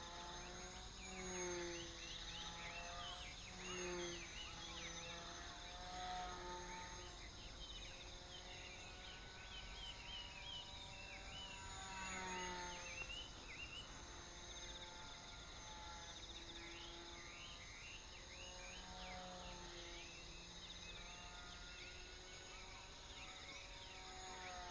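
The small motor and propeller of a tethered RC plane, buzzing faintly and swelling and wavering in pitch every couple of seconds as the plane circles on its line.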